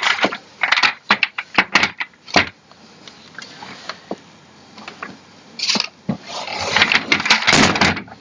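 Clicks, knocks and rustling from office chair parts being handled during assembly: a burst of sharp knocks at the start, then a longer stretch of dense rustling with clicks near the end.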